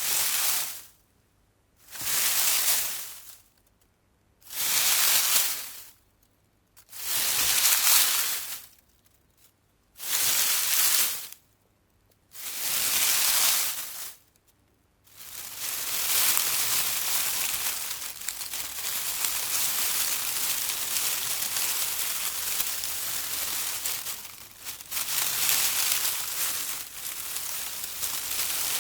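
Bush rustling as its leaves and twigs are shaken: six separate rustles of a second or two each, about two seconds apart, then unbroken rustling from about halfway through.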